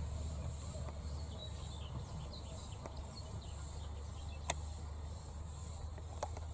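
Summer countryside ambience: insects chirring in a high, pulsing buzz about once a second, with a few bird chirps in the first half and a steady low rumble beneath. A couple of sharp clicks come in the second half.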